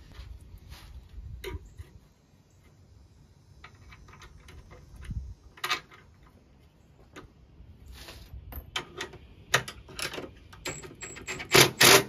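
Scattered clicks, taps and light knocks of hand tools and small parts being handled and fitted against a golf cart's metal front frame, with a few louder, sharper clatters near the end.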